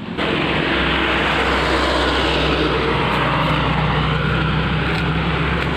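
A vehicle engine running with a steady drone and a loud, even rush of road or wind noise, starting abruptly just after the start and holding level.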